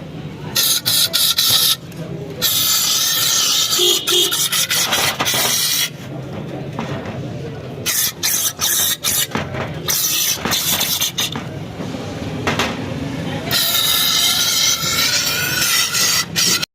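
Scrubbing and scraping of a dirty engine intake manifold during cleaning: many short rasping strokes, with two long stretches of hiss from about two and a half to five seconds and again near the end.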